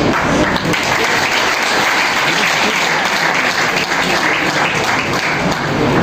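Audience applauding: steady clapping from many hands.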